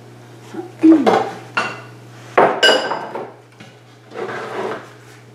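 Dishware clinking and knocking: a few knocks about a second in, then a louder clink about two and a half seconds in that rings briefly, followed by a softer rustle.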